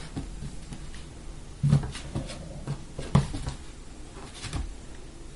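Scattered thuds and knocks of a puppy playing with a tennis ball on a bare hardwood floor, three of them louder, about a second and a half apart.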